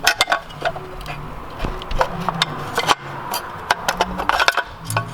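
Saab gear shifter assembly being worked loose and lifted out by hand: a string of irregular clicks, knocks and rattles of hard plastic and metal parts.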